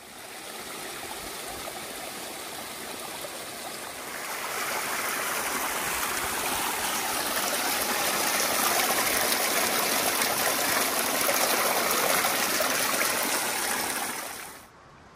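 Mountain stream rushing steadily, an even wash of water noise that grows louder about four seconds in and cuts off suddenly near the end.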